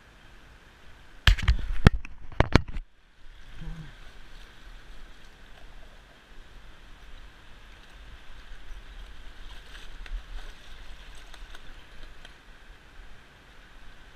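Water sloshing and lightly splashing around a float tube while a hooked northern pike is drawn to the surface. Between about one and three seconds in there is a handful of loud, sharp knocks close to the microphone.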